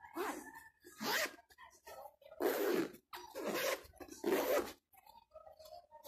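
Backpack zipper being pulled back and forth in about five short strokes. The slider has just been squeezed tight with pliers so that it closes the teeth again.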